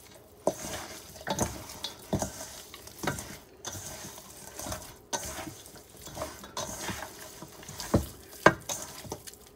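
Raw chicken legs coated in olive oil and spices being mixed by hand in a stainless steel bowl: irregular wet squelches and slaps, about one or two a second, the loudest near the end.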